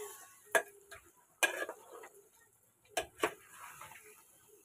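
Metal spoon knocking and scraping against a metal cooking pot while stirring chicken being fried in a thick green masala paste: four sharp clinks, spaced about a second apart, with two close together near the three-second mark.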